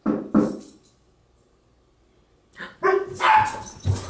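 Dog barking: two sharp barks close together, then, after a pause of about two seconds, a quicker run of several more barks.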